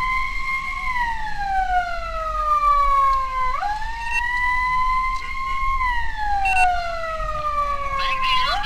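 Emergency vehicle siren on a slow wail: the pitch climbs quickly, holds for a moment, then falls slowly over a few seconds, climbing again about three and a half seconds in and once more near the end.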